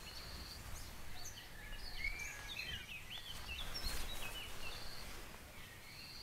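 Outdoor ambience of many small birds chirping and twittering in short calls over a low steady rumble. There is a brief burst of noise about four seconds in.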